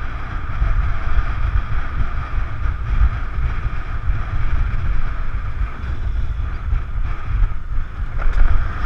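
Wind buffeting an action camera's microphone while riding a motor scooter, with the scooter's engine and tyres on brick paving running steadily underneath. There is a short knock near the end.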